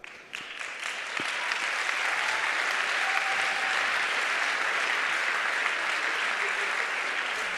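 Large audience applauding, building up over the first second or two and then holding steady.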